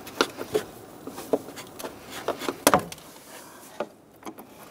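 Light plastic clicks and knocks, about half a dozen at uneven intervals with the loudest a little past halfway: the plastic retaining buttons of a wiring harness being popped off a car's plastic cooling fan shroud as the harness is worked free.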